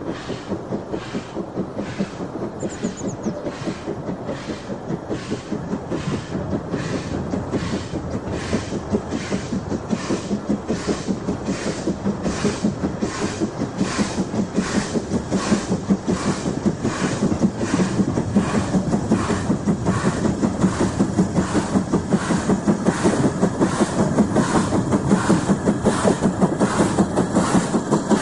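Ivatt Class 2 2-6-0 steam locomotive 46443 working a train, its two-cylinder exhaust chuffing in a slow, even beat that grows steadily louder as the engine approaches.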